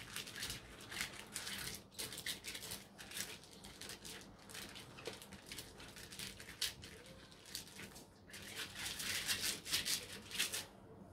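Pastry brush stroked quickly back and forth over plastic food-dehydrator trays, greasing them with vegetable oil: a run of short, light scratchy strokes that grows busier near the end.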